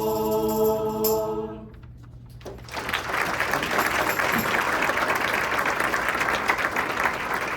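A choir holds its final chord and cuts off about two seconds in; after a short pause the audience breaks into steady applause.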